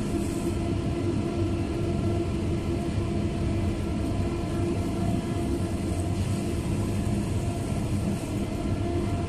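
Manroland 700 sheetfed offset press running: a steady mechanical rumble with a constant hum of several steady tones.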